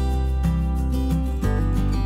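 Background music with a guitar over a steady bass line, the bass note changing about one and a half seconds in.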